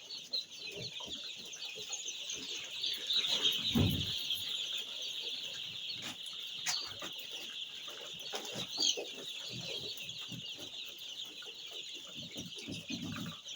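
A flock of week-old broiler chicks peeping continuously, many high chirps overlapping. A low thump comes about four seconds in.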